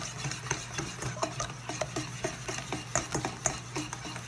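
Wire whisk beating egg whites, sugar and lemon in a stainless steel bowl: quick scraping clinks of the wires against the metal, about four strokes a second. A steady low hum runs underneath.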